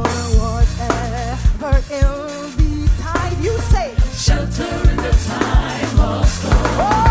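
Gospel band and vocal group performing: several voices singing held notes with vibrato over drum kit, bass guitar and keyboards, with a steady beat of drum hits.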